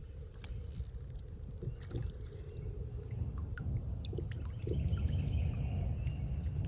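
Steady low outdoor rumble on the microphone, growing louder about two-thirds of the way through, with scattered light clicks and ticks of fishing tackle being handled during a cast and retrieve.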